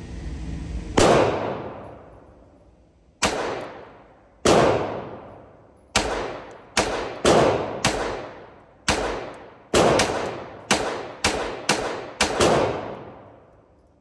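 Pistol fired about fifteen times at irregular intervals, single shots and quick pairs, each crack echoing off the walls of an indoor range.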